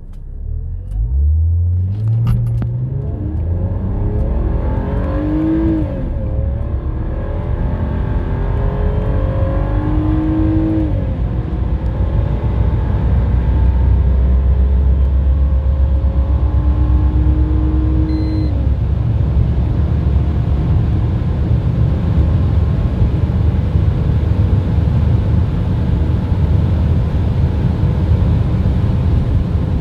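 BMW E46 330Ci's stock 231 hp 3.0-litre inline-six at full throttle, heard from inside the cabin, accelerating from a standstill up through the gears. The engine note climbs in each gear and drops at each upshift, the gears lasting longer as speed builds, with road and wind rumble growing underneath.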